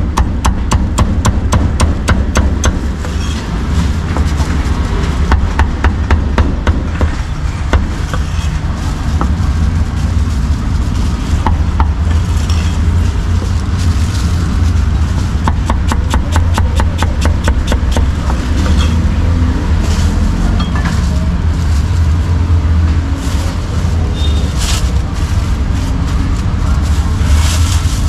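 A heavy steel cleaver chops roast meat on a thick round wooden chopping block in quick, even strokes, the chopping thinning out in the second half. A steady low traffic rumble runs underneath.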